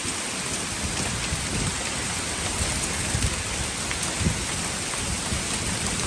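Heavy rain pouring down hard and steadily, with an irregular low rumbling underneath.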